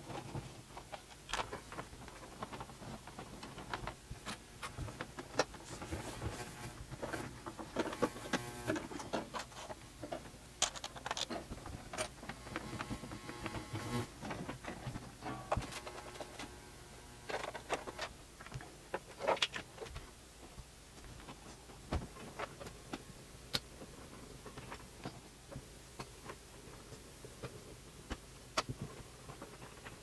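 Computer cables being handled and moved about a desk: scattered clicks and knocks of plastic plugs and cords, with rustling and a few short sliding, rasping stretches.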